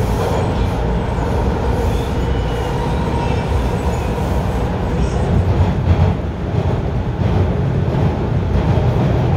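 Bombardier T1 subway train running between stations, heard from inside the car: a steady low rumble of wheels on rail with a few faint thin squeal tones.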